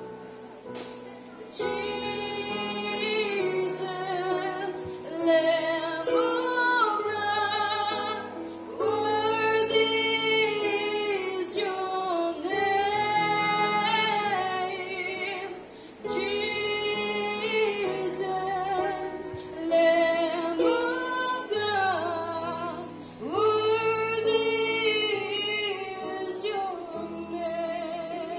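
A woman singing a Christian worship song solo into a microphone, with long wavering held notes over a backing of sustained low chords that change every second or two.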